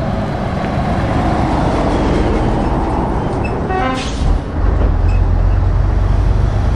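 Trucks and vans passing in convoy: steady engine and tyre noise, a brief horn toot about four seconds in, then a deep engine rumble that swells as a Scania truck approaches.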